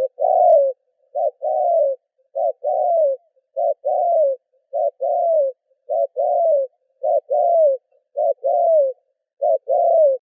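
A bird calling with a low coo: a short note followed by a longer falling note, the pair repeated nine times about every 1.2 seconds.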